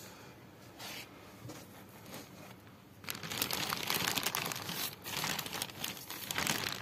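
Clear plastic sheeting crinkling and rustling as it is handled, starting about three seconds in as a dense crackle.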